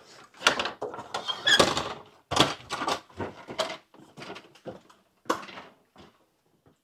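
A stepladder being set in place and climbed: an irregular run of clunks, scrapes and rattles, loudest in the first three seconds and thinning out toward the end.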